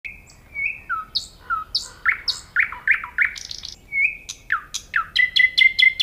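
Common nightingale singing: a varied phrase of clear whistles and sharp down-slurred notes, ending in a quick run of repeated notes.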